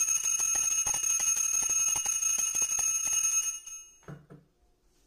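Small brass puja hand bell (ghanti) shaken steadily, its clapper striking about five times a second, for about three and a half seconds as the fruit offering is made. It stops suddenly, followed by a soft knock as the bell is set down on the wooden floor.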